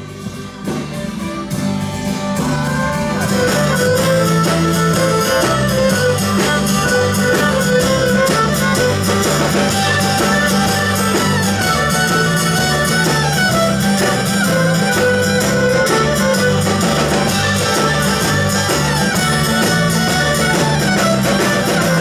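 Live folk band playing an instrumental tune on fiddle, accordion, acoustic guitar, bass guitar and drums, with the fiddle prominent over a steady bass line. The music is quieter for the first couple of seconds, then comes in full and steady.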